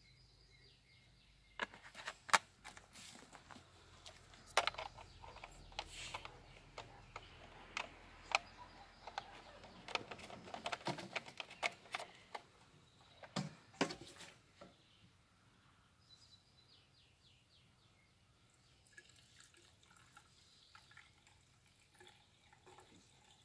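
Handling noise from refuelling a chainsaw: sharp plastic clicks and knocks from a bottle and the tank filler caps, bunched over the first fifteen seconds or so. After that it is much quieter, with faint liquid trickling near the end as fuel is poured into the tank.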